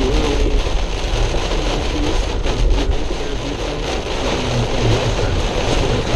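Car driving through a heavy rainstorm: steady road and rain noise inside the cabin.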